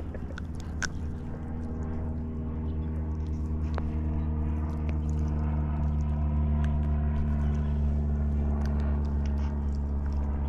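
Steady low drone of a boat engine that slowly grows louder, with a few small clicks and ticks from handling the fish and tackle.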